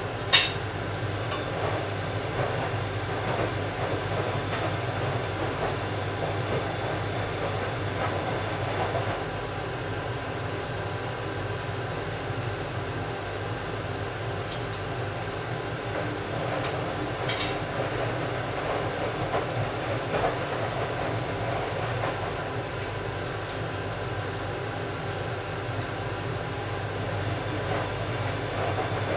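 Steady low mechanical rumble, with a sharp knock just after the start and a fainter click about seventeen seconds in.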